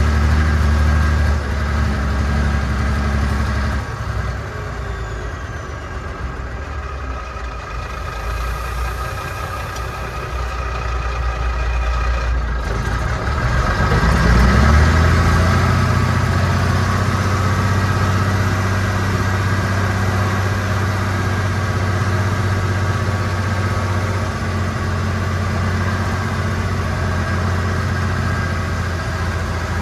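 1965 Mack B61's turbocharged Thermodyne six-cylinder diesel, heard from inside the cab while driving. The engine note drops back about a second and a half in, then rises in pitch about halfway through and holds a steady pull. The owner says it is running like it's running out of fuel and suspects it is not picking up fuel.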